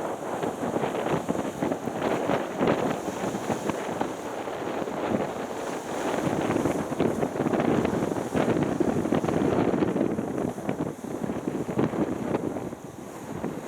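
Wind buffeting the microphone in gusts, louder around the middle and easing off near the end.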